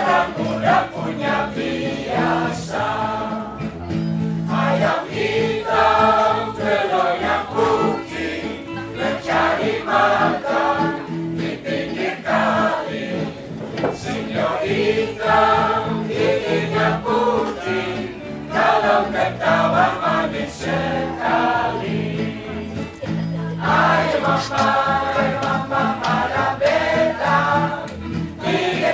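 Choir singing a song with instrumental accompaniment.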